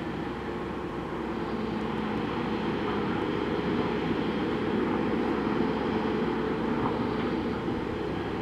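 Heavy diesel engines of a Liebherr R 9350 mining excavator and a Komatsu HD785-7 haul truck running with a steady, deep drone. It swells louder from about two seconds in and eases off near the end.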